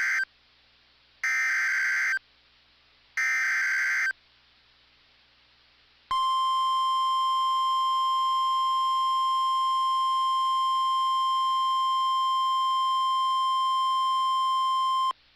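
NOAA Weather Radio emergency alert: the end of one burst of SAME header data tones, then two more buzzy bursts of about a second each. After a short pause comes the steady 1050 Hz warning alarm tone, held for about nine seconds, which cuts off abruptly. The sequence signals that a warning, here a severe thunderstorm warning, is about to be broadcast.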